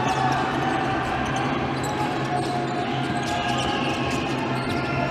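Basketball game sound in a sports hall: the ball dribbling on the wooden court and sneakers squeaking, over a steady hum of voices and shouts.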